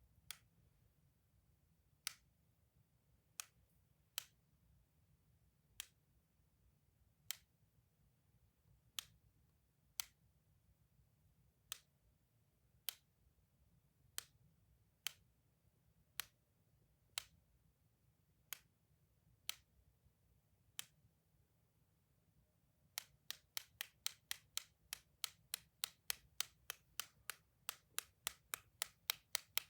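Sharp clicks from a clicky toy, spaced a second or so apart, then speeding up to about four a second near the end.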